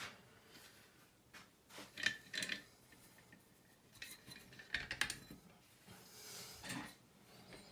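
Small metallic clicks and scrapes from a Goal S pin-tumbler lock and its picking tools being handled after the lock has been picked open. They come in three short clusters, about two, five and seven seconds in.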